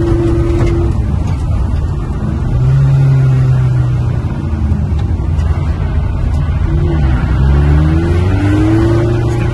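Car engine heard from inside the cabin, revving up and down as the car slides on snow; its pitch rises and falls several times.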